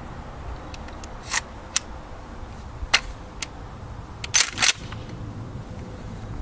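Pump-action shotgun being loaded by hand: a series of short, sharp metallic clicks as shells go into the magazine, with two louder clacks close together a little past four seconds in.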